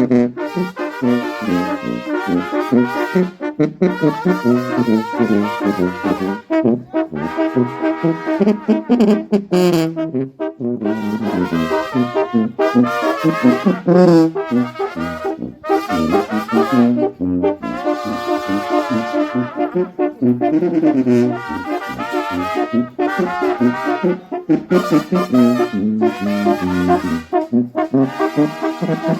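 Mexican brass band playing, trumpets and trombones carrying the melody in a lively rhythm.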